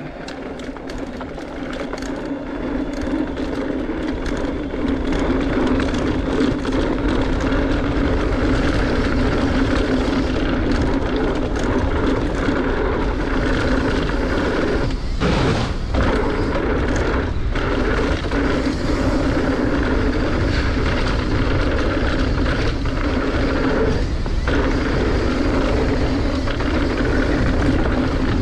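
Mountain bike descending a dirt trail: a steady rush of wind on the microphone mixed with tyre noise and small rattles, building over the first few seconds as the bike picks up speed, then holding.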